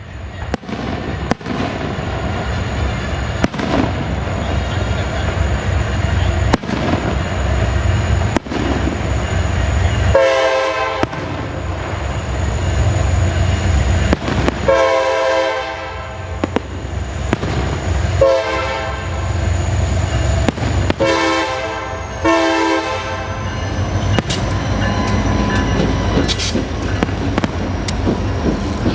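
Diesel freight locomotives rumbling past, the lead locomotive sounding its horn in the grade-crossing pattern: two long blasts, a short one and a long one. Sharp fireworks bangs go off at intervals over the train noise.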